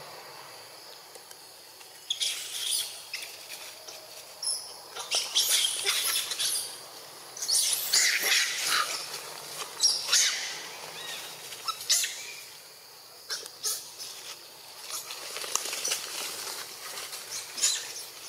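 Rustling and scuffling in dry leaf litter and soil, in irregular bursts, as a young macaque scrambles about and paws at a toad on the ground.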